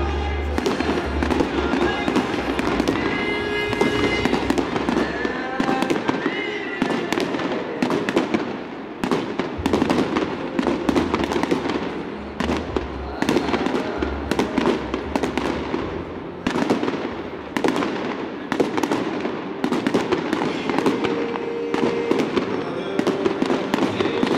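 Fireworks display: a continuous barrage of sharp bangs and crackles, several a second.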